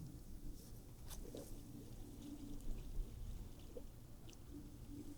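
Faint handling sounds: light rustling and a few small clicks as bank line is worked by hand, over a faint low hum.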